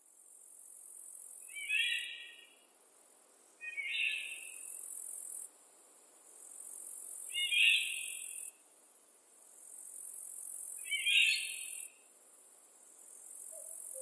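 Woodland songbird singing a short phrase four times, a few seconds apart, over a thin, very high insect-like buzz that swells and breaks off every two to three seconds.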